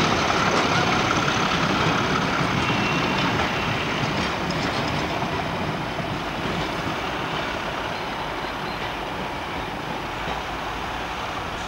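Freight train of oil tank wagons rolling past on the main line, a steady wheel-on-rail rumble that slowly fades as the last wagon draws away.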